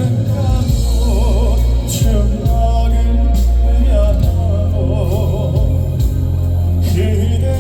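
Live band playing a slow ballad, with a heavy steady bass and a sung melody line wavering in vibrato over it.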